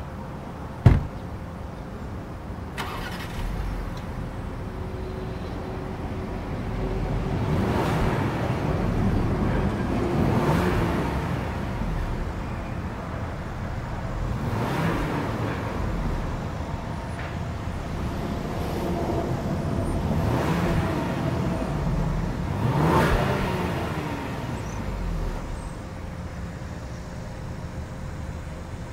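A loud thump about a second in, then the 2020 Ford Explorer Platinum's 3.0-litre twin-turbo V6 starts and idles. It is revved up and let fall back about five times, each rev rising and falling in pitch.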